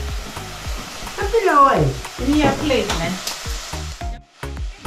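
Shrimp deep-frying in hot oil: a steady sizzling hiss, with voices over it, and a brief break a little after four seconds in.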